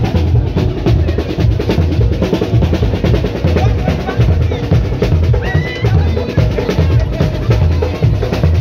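Loud music with a steady, heavy drum beat.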